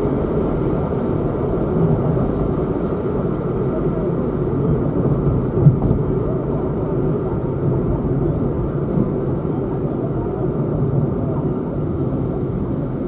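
Car driving, with steady engine and road noise. A brief thump comes about five and a half seconds in.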